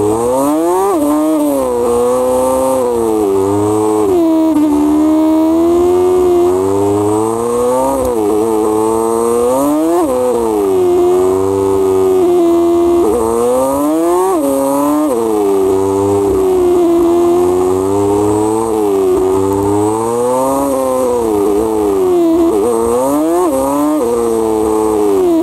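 Motorcycle engine heard from an onboard camera, pulling hard and easing off over and over, its pitch climbing quickly and then dropping with each throttle opening and gear change.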